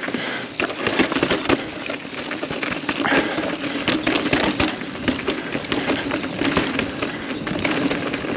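Mountain bike rolling over rough, rocky trail: tyres grinding over rock under a constant rattle of clicks and knocks from the bike.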